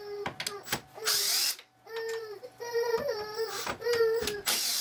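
Cordless drill driving screws in several short pulls of the trigger, its motor whine bending and sagging in pitch under load, with brief hissy bursts between.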